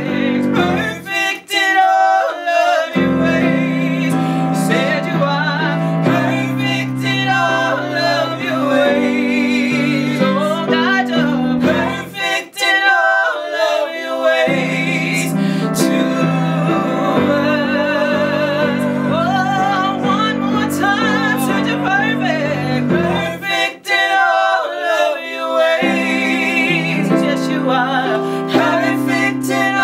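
Gospel worship song: a woman sings lead while playing held chords on a Yamaha electronic keyboard, with male and female backing singers. The chords change every few seconds, with short pauses between phrases.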